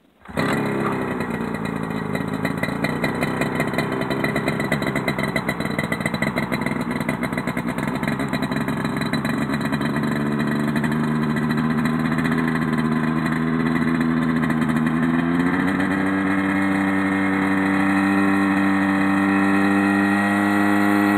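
Rotax 503 dual-carb, dual-ignition two-stroke twin on a Mosquito ultralight helicopter starting up about half a second in and running loudly at a lower speed. About fifteen seconds in it revs up and settles at a higher, steadier speed.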